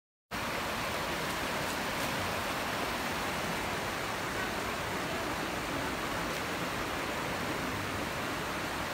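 Rocky river rapids rushing, a steady even wash of water noise that starts abruptly just after the beginning.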